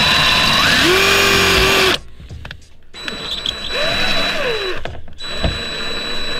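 Electric drill-driver with a Phillips bit driving a self-tapping screw up into a pilot hole. The motor speeds up, runs steady and stops suddenly about two seconds in. About four seconds in it runs again briefly, rising and falling in speed.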